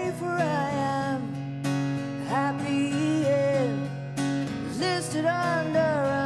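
Live acoustic rock band: a woman sings a slow melody over strummed acoustic guitars.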